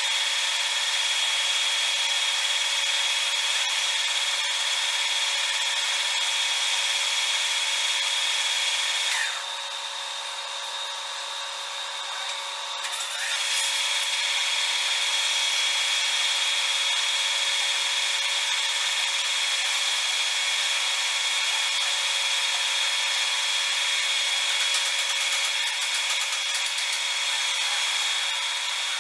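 Metal lathe taking a facing cut: the cutting tool scraping across the face of a spinning metal workpiece, a steady hiss with a high steady whine. The cut eases off for a few seconds about a third of the way in, then resumes.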